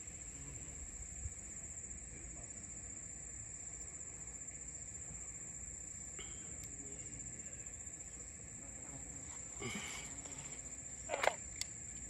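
Steady high-pitched chorus of insects trilling, with a couple of short rustling handling noises near the end.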